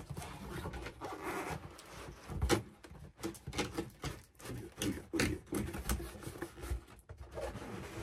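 Cardboard handled by hand: shipping-box flaps rustling and a cardboard display box scraping and sliding against the box walls as it is worked up out of it, in a run of rubs and knocks, the loudest knock about two and a half seconds in.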